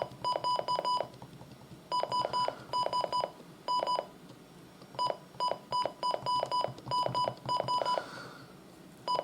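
Midland WR300 weather radio's keypress beeps: short, identical high beeps in quick clusters of two to five, with brief pauses between, as its buttons are pressed through the setup menu.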